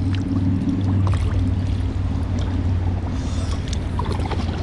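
Kayak being paddled on a river: water sloshing and trickling from the paddle with faint knocks, over a steady low hum that is strongest in the first second or so.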